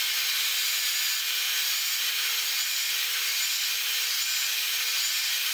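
Evolution EVOMAG42 magnetic drill running, its annular cutter boring a hole through a steel plate: a steady, even whirring hiss.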